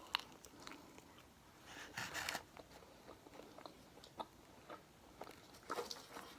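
Close-up mouth sounds of someone eating sauced bone-in chicken wings: faint wet chewing and biting with scattered small clicks and smacks, a little louder about two seconds in and again near the end.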